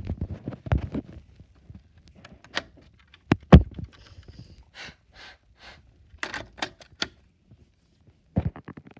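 Scattered clicks and knocks, with one loud thunk about three and a half seconds in and a few short rustles soon after.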